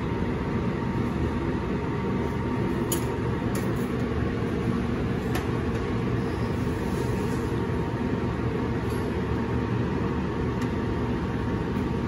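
Steady low rushing noise of a kitchen ventilation hood and a lit gas burner, with a faint steady hum. A few faint clicks of kitchenware against the saucepan.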